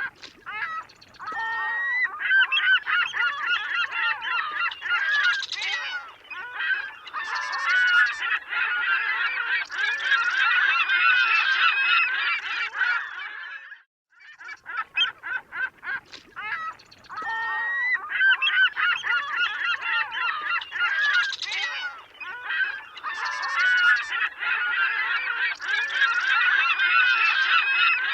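Recorded sound effect of a flock of birds, many overlapping honking calls. The same stretch of about 14 seconds plays twice, looped, with a brief gap between.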